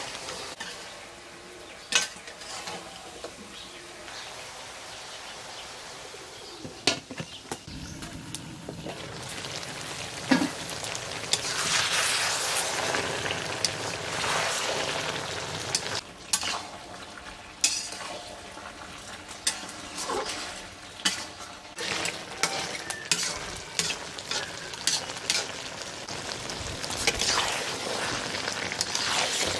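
Beef and eggplant curry sizzling in a black iron karahi while a metal spatula stirs it, clinking and scraping against the pan many times. The sizzle grows louder about a third of the way through.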